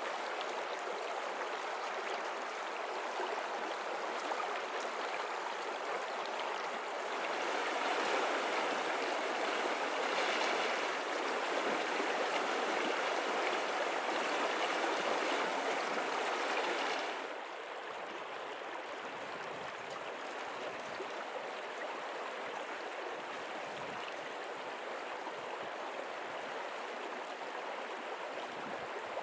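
Flowing stream water rushing steadily. It grows louder about seven seconds in, then drops suddenly about seventeen seconds in to a quieter, deeper rush.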